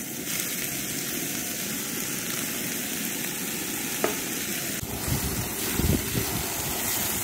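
Zucchini, broccoli and onion sizzling in oil in a cast iron skillet as cooked rice is poured in, with one sharp clink about four seconds in. From about five seconds a spatula stirs and scrapes the rice and vegetables together.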